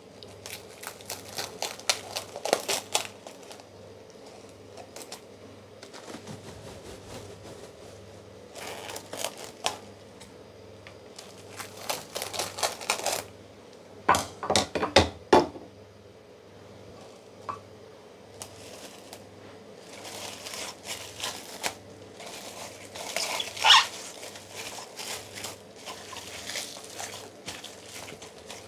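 Plastic cling film crinkling and rustling in irregular bursts as it is pulled off the roll, torn and smoothed over a stainless steel mixing bowl, with a few sharper crackles and light knocks against the bowl.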